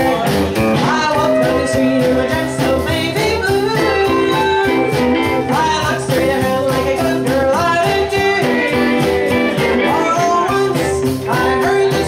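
A live band plays a song: a woman sings over electric guitar, upright bass and drums, with a steady, quick beat.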